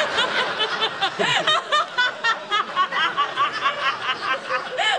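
A woman laughing hard and helplessly: a fast, even run of high-pitched 'ha' pulses, about four a second.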